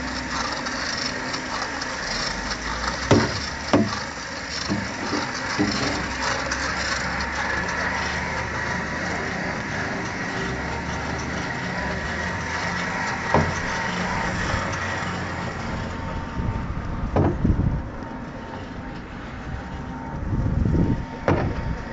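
XZ38 squeeze hose pump running steadily as it transfers mud: a constant mechanical hum with a faint steady whine, broken by a few sharp knocks. There is a louder low rumble near the end.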